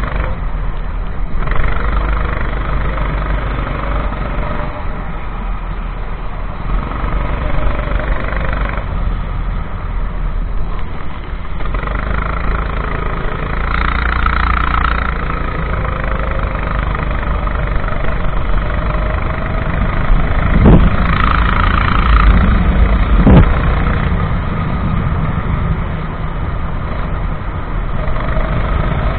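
Racing kart engine running flat out, its pitch rising and falling repeatedly as the kart accelerates and brakes through the corners. Two sharp knocks come about two-thirds of the way through.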